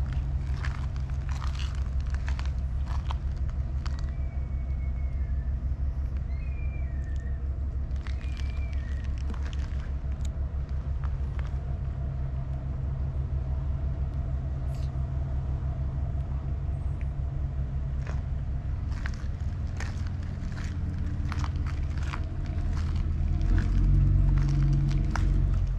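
Steady low rumble of an idling engine, growing louder near the end, with scattered light clicks and a few faint high chirps about a quarter of the way in.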